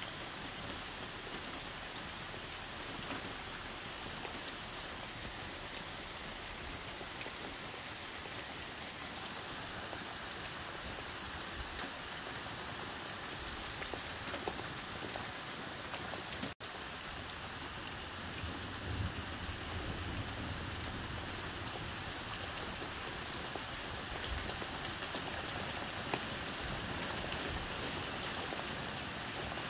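Heavy rain falling steadily on a camper's roof, heard from inside as a continuous patter with scattered single drops ticking. A low rumble comes in a few seconds after the halfway point, and the sound cuts out for an instant just before it.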